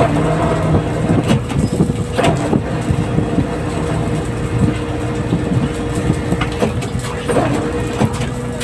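A fishing vessel's engine running steadily with a constant hum, with scattered knocks from work on deck.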